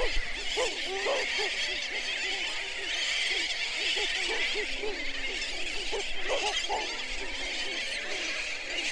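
A seabird colony calling: many short, overlapping calls over a steady hiss.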